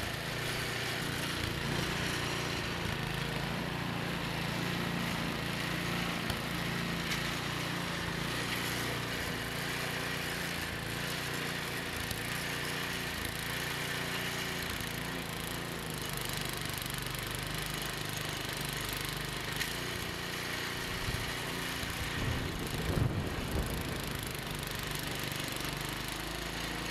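Small engine of a snowblower running steadily while clearing deep snow. A short knock sounds near the end.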